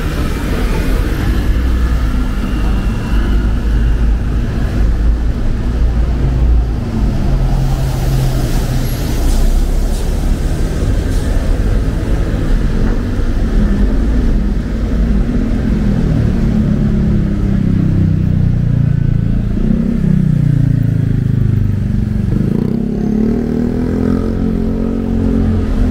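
Street traffic on wet roads: cars and motorcycles running past in a steady low rumble. In the second half one engine's pitch falls and then rises again as it slows and pulls away.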